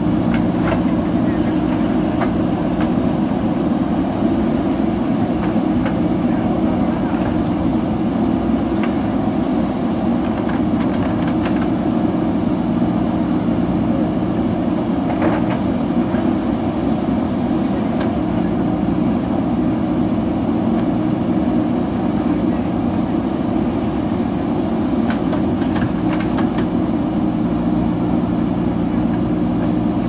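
Diesel engines of several JCB backhoe loaders running together under working load, a steady loud drone. A few short sharp clanks stand out over it, the loudest about fifteen seconds in, typical of buckets and booms working in soil and rubble.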